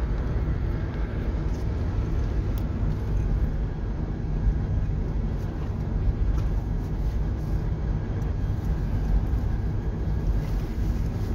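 Steady low road and engine rumble of a car cruising at speed, heard from inside the closed cabin.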